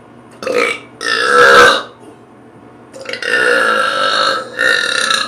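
A person belching loudly several times: a short burp, then a longer one, then after a pause a long drawn-out belch held for about a second and a half, followed by one more.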